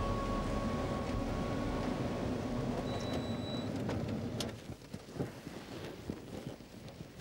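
A parked sedan's engine running steadily and then shut off about four and a half seconds in, followed by clicks and knocks of the car door's latch as the door is opened.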